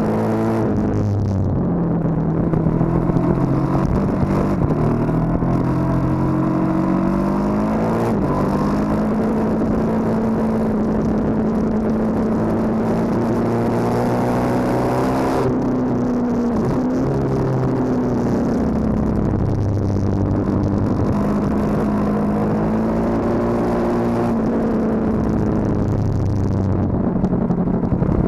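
KTM 1290 Super Duke R's big V-twin engine under load on track, heard from the bike with wind rush. Its pitch climbs and falls with throttle and gear changes, drops sharply about halfway as the bike slows for a corner, then climbs again.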